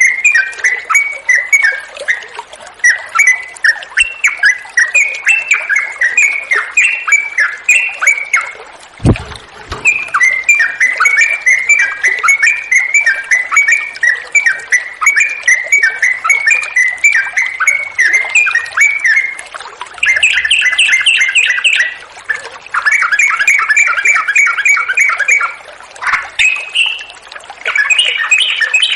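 Yellow-vented bulbul (trucuk) singing a long, fast, chattering song in repeated runs with short breaks, over the hiss of flowing water. A single low thump comes about nine seconds in.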